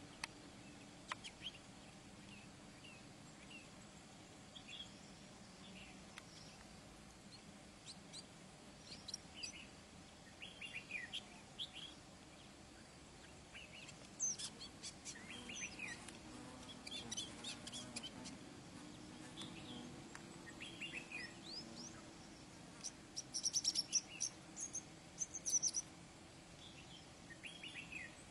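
Shrike singing a varied run of short chirps and whistles in scattered bursts, loudest near the end, over a faint low background hum.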